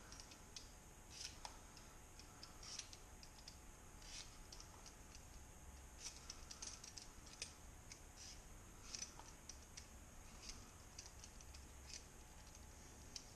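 Faint, irregular scraping strokes, one or two a second, of a plastic Y-shaped vegetable peeler taking the skin off small potatoes.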